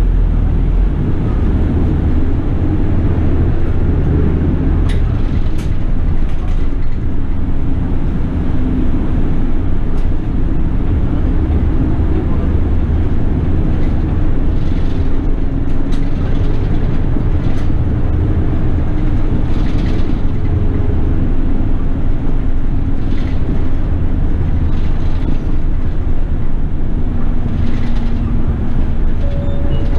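City bus running, heard from inside the cabin: a steady low engine and road rumble, with the engine note rising and falling through the gears and a few short clicks and rattles.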